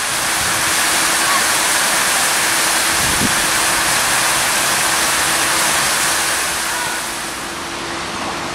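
Outdoor water-wall fountain, many spouts of water pouring into a stone basin: a steady rushing splash. Near the end it drops to a quieter outdoor background noise.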